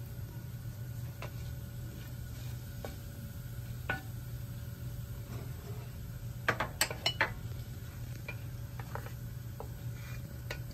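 Cumin seeds frying in hot ghee in a stainless steel pan, with scattered crackles and clicks. A quick run of sharp clicks comes a little past halfway as a wooden spatula stirs against the pan.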